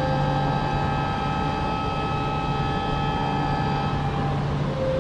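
E4 series double-decker Shinkansen pulling into the platform at low speed: a steady low running hum with a high whine of several held tones over it, which fades out about four seconds in.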